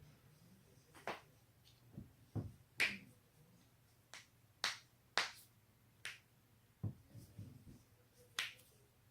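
Neck and back joints cracking: about ten sharp pops and cracks at irregular intervals, a few with a duller low thud.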